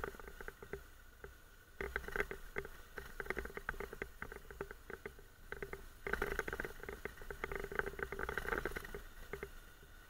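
Dense, rapid rattling and clicking from a Honda NC750X DCT motorcycle and its mounted camera jolting over a rough dirt lane, with a faint low rumble underneath. The rattling comes in louder spells, about two seconds in and again around six seconds.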